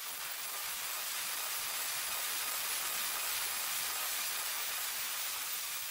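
A 4.5-inch angle grinder's thin cut-off wheel cutting through steel tubing: a steady, hissing grind with a faint whine.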